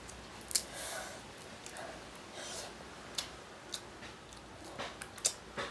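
Seafood shell being picked apart by hand: scattered, irregular sharp cracks and clicks, with soft chewing sounds in between.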